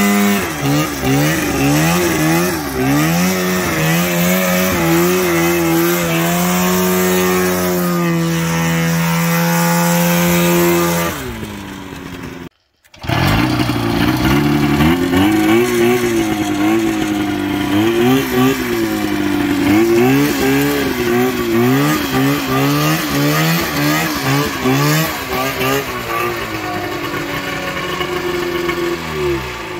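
Polaris 488 two-stroke twin engine of a custom racing lawnmower, revving up and down over and over. Partway through it is held at steady high revs for about four seconds, then falls away. After a brief cut-out about twelve seconds in, the revving resumes and fades at the end.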